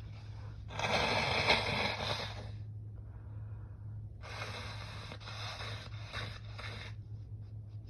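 A man blowing his nose, clearing a nose irritated by allergies: one long, loud blow about a second in, then after a pause a run of about four shorter blows in quick succession.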